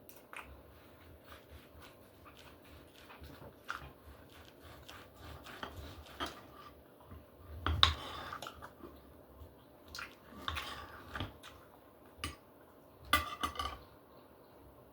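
Close-up eating sounds from a meal of steak: chewing and mouth noises, with knife and fork clicking against a plate now and then. The loudest bursts come about eight seconds in and again near the end.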